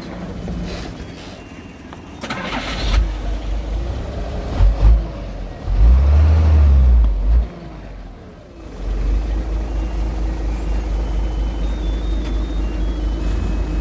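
Heavy diesel engine of earthmoving machinery running, with uneven surges of low rumble through the first half, settling into a steady drone about nine seconds in.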